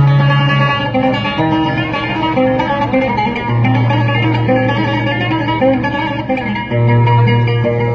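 Oud playing an instrumental passage, a plucked melody over low notes held for several seconds at a time.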